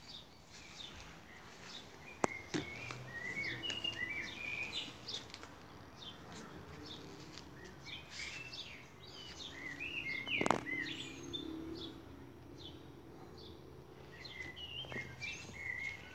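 Garden birds chirping and singing in short, quick phrases, with a few sharp clicks, the loudest about ten seconds in.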